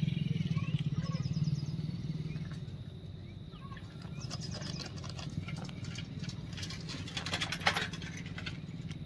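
Close handling of a small fish and hook: scattered clicks and rustles, with a quick rapid run of clicks about seven to eight seconds in. Under it a low steady hum fades away over the first few seconds.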